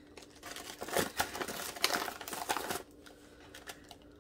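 Small wax melt shapes being handled in their plastic packaging: crinkling and light clicking for about two and a half seconds, then a few faint clicks.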